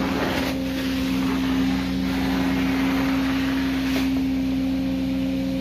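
Carpet-cleaning extraction equipment running: a steady vacuum-motor hum with a rushing hiss that swells and eases every couple of seconds as the cleaning wand is worked over the carpet.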